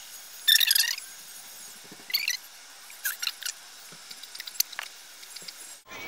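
Hair being teased (backcombed) at the crown: a few short scratchy rasps as the strands are pushed down toward the scalp, roughly a second apart.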